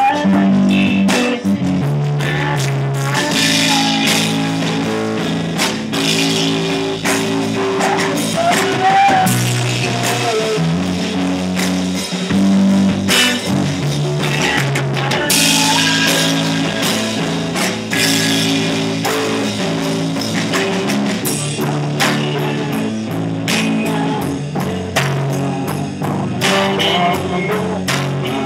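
Rock band rehearsing live, with electric guitars and a drum kit playing a song together without a break.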